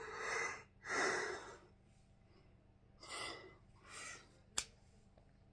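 A man breathing heavily close to the microphone: two loud breaths in quick succession, then two softer ones a few seconds later, with one short sharp click near the end.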